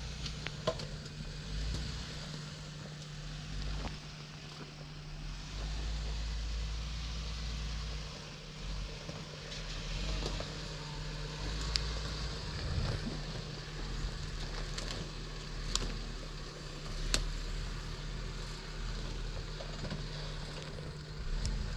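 Off-road 4x4 engine running steadily at low crawling speed, with scattered sharp clicks and knocks from the tyres and underbody working over rocks.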